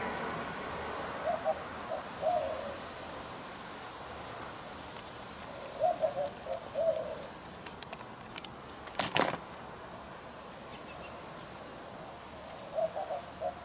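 A dove cooing: a short phrase of several low notes, repeated three times about every five to six seconds. A brief sharp rustle comes about nine seconds in.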